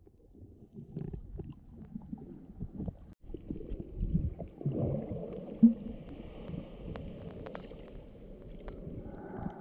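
Muffled underwater sound from a submerged action camera: water moving and gurgling around the housing as a low, uneven rumble, with scattered small clicks and one louder knock about halfway through.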